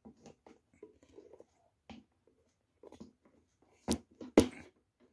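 Handling noise from a handheld camera: scattered faint clicks and rustles, then two sharp knocks about four seconds in, half a second apart.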